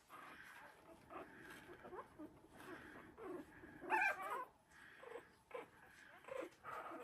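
Three-week-old Havanese puppies whimpering and squeaking as they wrestle: a string of short, faint cries, the loudest one about four seconds in.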